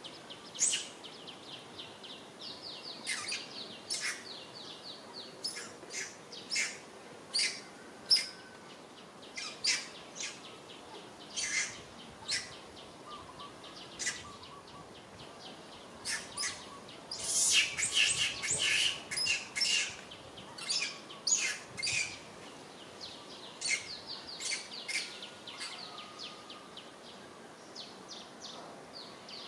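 Short, high bird chirps, scattered and repeating, some in quick runs, with a dense flurry of chirps about two thirds of the way through, over a faint outdoor background.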